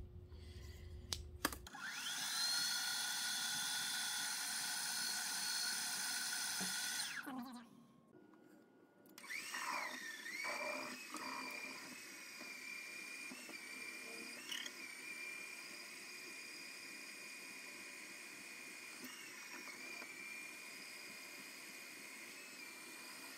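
Milling machine spindle drilling a connecting rod: a steady high whine for about five seconds, a short lull, then the spindle spins up again and runs on with a steady whine that wavers briefly now and then as the drill cuts, stopping near the end.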